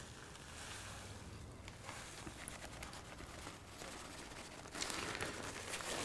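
Paper crinkling faintly as powdered dried cochineal is shaken out of it into a pot of hot water, with a few small ticks and a louder rustling hiss near the end.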